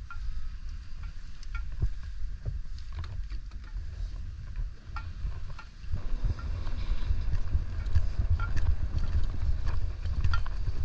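Muffled low rumble of sea water and wind buffeting an action camera's microphone, with many scattered sharp clicks.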